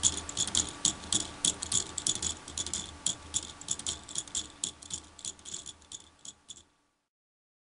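Lego Technic pendulum clock with a pin wheel escapement ticking: the pins of its plastic escape wheel clicking against the pallets in a quick, fairly even run of several sharp plastic ticks a second. The ticks grow fainter and stop nearly seven seconds in.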